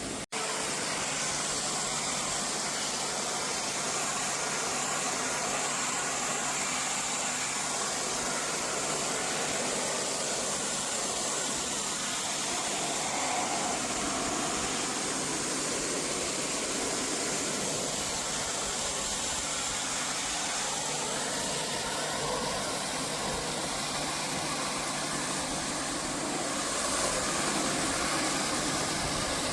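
Pressure washer running steadily, its motor humming under a constant hiss of water spray, growing slightly louder near the end.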